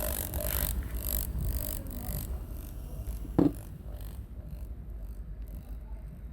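Washing machine electric drain pump running on 220 V mains, a steady low hum with some rough noise over the first couple of seconds and a short sharp sound about three and a half seconds in. The pump is judged acceptable, not needing repair.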